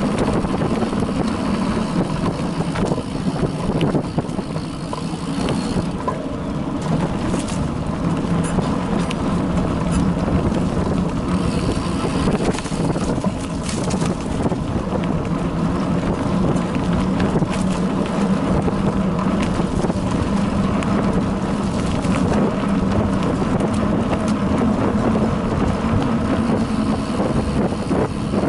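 Bicycle riding along a dirt forest trail, heard through a bike-mounted action camera: steady tyre rumble and wind on the microphone, with scattered small clicks and knocks as the bike rattles over bumps.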